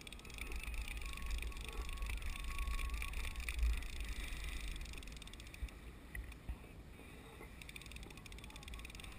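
Wind rumbling on the microphone of a kayak-mounted camera, loudest in the first few seconds and easing after about five, over a steady wash of choppy sea water against the kayak hull.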